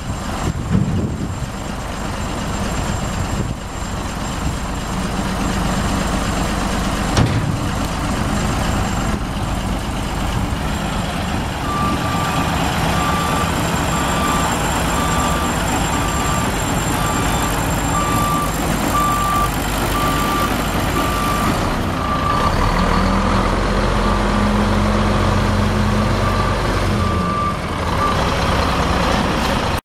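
Mack E7 12-litre inline-six diesel of a dump truck running, with a sharp knock about seven seconds in. From about twelve seconds in, the truck's backup alarm beeps at an even pace. The engine pulls harder from about twenty-two seconds until shortly before the end.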